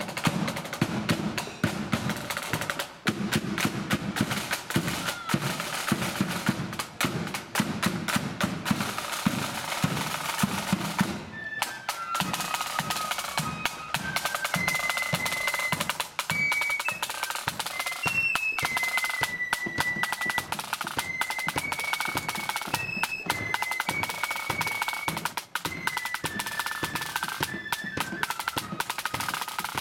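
Marching flute band: snare drums rolling and bass drum beating on their own, then about eleven seconds in the flutes come in with a tune over the drums.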